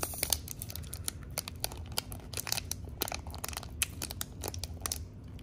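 A trading-card booster pack wrapper being crinkled and torn open by hand, a hard-to-open pack: a dense run of irregular crackles and rips.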